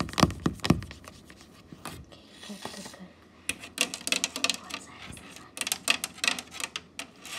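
Handling noise on a phone held close: fingers rubbing and scratching against the phone near its microphone, in three short spells of rustling clicks.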